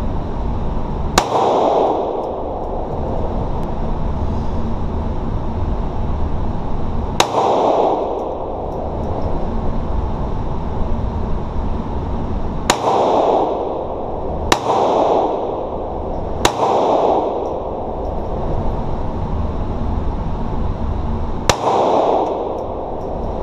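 Six single pistol shots fired slowly, several seconds apart, each a sharp crack followed by a short echo in the indoor range, over a steady low rumble.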